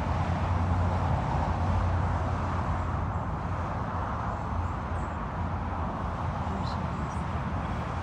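Steady low outdoor rumble, with a few faint short high chirps in the second half.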